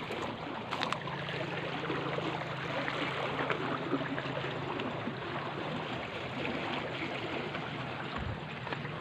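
Fast, muddy floodwater rushing steadily down a concrete channel, with a couple of light clicks about a second in.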